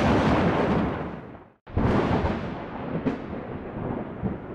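Close thunder. A loud clap rolls on, fades and cuts off suddenly about a second and a half in. A second loud clap follows at once, with a sharp crack about three seconds in, then rumbles and slowly fades.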